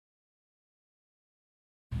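Complete silence, then just before the end the stock exhaust of a Honda CBR650R's inline-four engine cuts in abruptly, already running.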